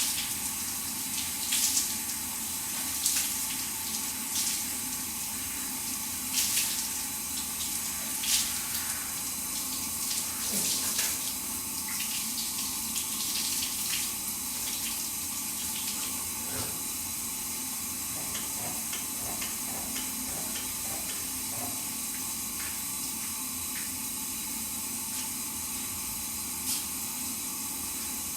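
Shower running: a steady hiss of spraying water, with brief louder splashes every second or two in the first half before it settles to an even stream.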